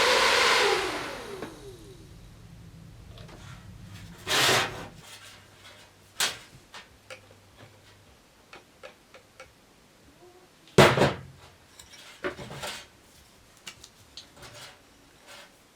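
A small cordless-screwdriver motor running and winding down over the first two seconds, then a string of knocks, clicks and clatter from parts being handled, with the loudest knock about 11 seconds in.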